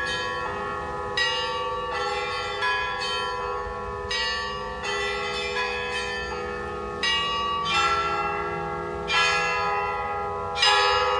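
Russian Orthodox church bells ringing: a steady hum from a larger bell under uneven strikes of smaller bells, about one a second, each left to ring on. The strongest strike comes near the end.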